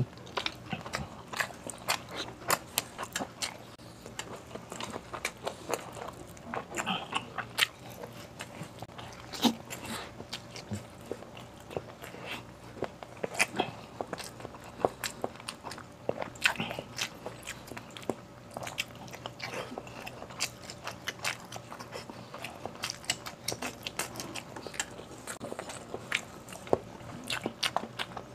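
Close-miked chewing and lip-smacking of a person eating soft stewed beef, potatoes and rice by hand: a dense, irregular run of wet mouth clicks and smacks.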